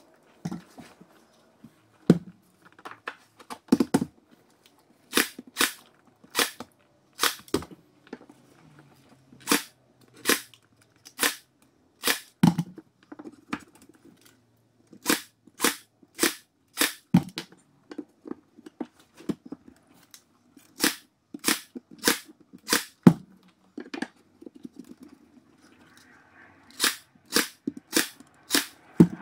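Cordless Ryobi AirStrike 23-gauge pin nailer firing headless pin nails into shiplap boards: sharp snaps, mostly in quick runs of three to six about half a second apart, with short pauses between runs.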